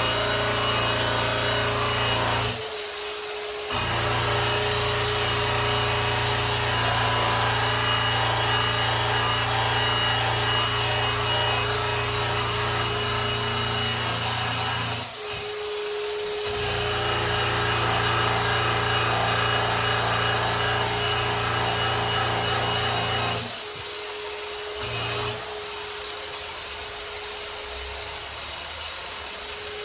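Electric polisher running against a grand piano's finish, its spinning pad rubbing the surface in a steady whir. The low hum dips out briefly about three seconds in and again midway, and for a longer spell near the end.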